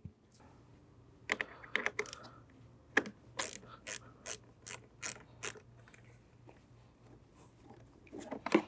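10 mm socket ratchet clicking as it turns the nut on a car battery's negative terminal clamp to disconnect it. The clicks come as a series of sharp ticks, about two or three a second, then fade and pick up again near the end.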